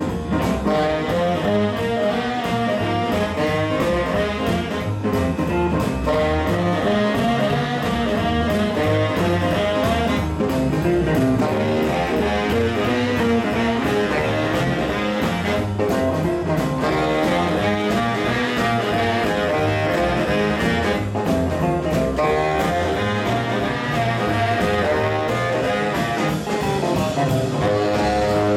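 Live jazz and swing band playing: baritone and tenor saxophones play the lead together over upright double bass, drums and guitar, with a steady beat.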